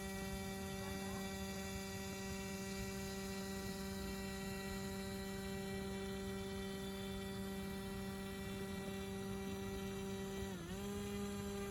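Electric motor and propeller of a radio-controlled model whining at a steady pitch. Near the end it dips briefly and then comes back slightly higher.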